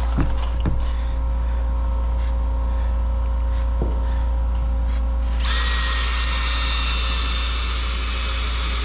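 Power drill spinning up and running steadily for about four seconds from a little past halfway, driving a screw into a wooden board, with a high motor whine. A few light knocks come before it, and a steady low rumble runs underneath.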